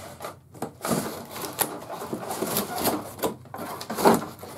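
A cardboard packaging insert being worked loose and pulled out of a box: irregular scraping, rubbing and knocking of cardboard on cardboard, loudest about four seconds in.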